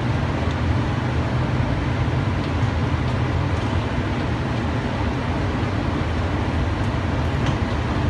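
Steady running noise of a cable-drawn Doppelmayr Cable Liner people mover cruising along its elevated guideway: an even low rumble with hiss, heard from aboard the car.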